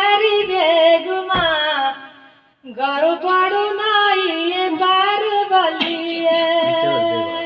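A Pahari folk song sung in a high voice, holding long wavering notes. The singing breaks off for a moment about two seconds in and then carries on.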